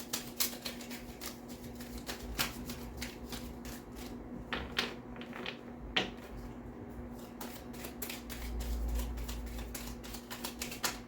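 Tarot cards being shuffled and handled, a dense run of quick, light card clicks, with a steady low hum underneath.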